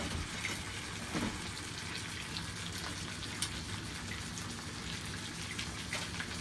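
Tuna pieces frying in hot oil in a pan: a steady sizzle with scattered crackles and pops.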